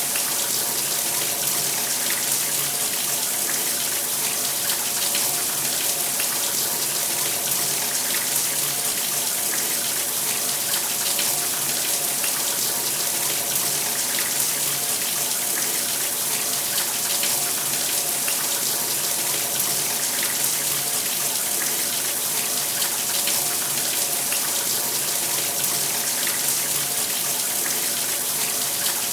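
Shower running steadily: a continuous spray of water falling and splattering, with an even hiss and a faint steady hum underneath.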